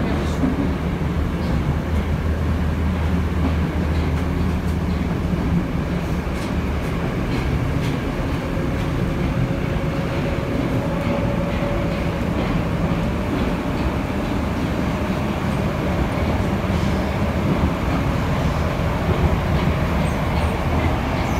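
Moscow Metro 'Moskva-2020' train running between stations, heard from inside the car: a steady, loud low rumble of wheels and running gear on the track. A faint steady whine comes in for a few seconds in the middle.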